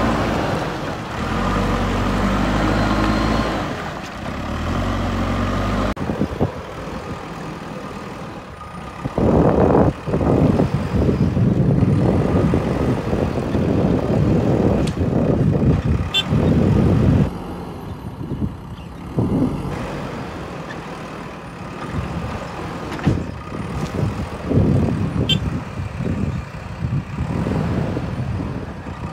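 JCB 3DX backhoe loader's diesel engine running under load. A long, loud rush of loose soil and gravel is tipped from its loader bucket into a steel tipper truck body.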